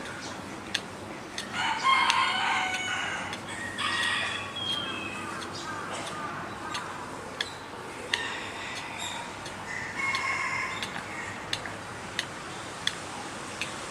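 A capybara gnawing on an enclosure fence, its teeth clicking sharply against it at irregular intervals. Several louder spells of high, wavering calls rise over the clicking, twice near the start and twice midway.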